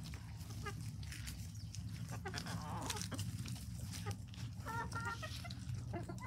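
Hens pecking at a pile of food scraps, with many quick pecking taps and a short run of clucks about five seconds in, over a steady low rumble.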